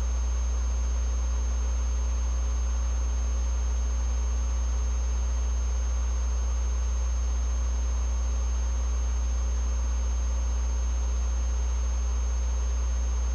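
Steady low electrical hum, like mains hum in the recording, with a faint thin high whine over it; it does not change.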